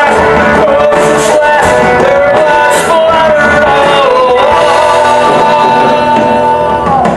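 Live rock-musical band playing loudly, heard from the audience, with a high melody line that settles into one long held note and drops off shortly before the end.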